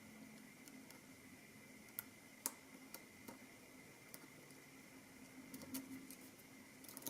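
Faint, irregular light clicks and ticks of a lock pick working the pin stack of a CX5 high security lock under tension, a few scattered taps a second apart. The lock is giving little feedback: the pins are not yet setting.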